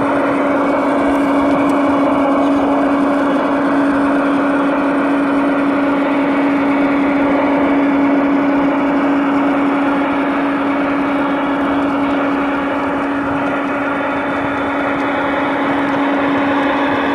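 G-scale model diesel locomotive running slowly at the head of a freight train, giving a steady drone with one constant humming tone.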